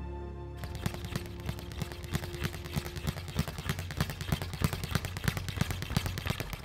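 Speed bag being punched in a rapid rattling run of hits, several a second, with no let-up. A few held notes of background music fade out under it in the first three seconds.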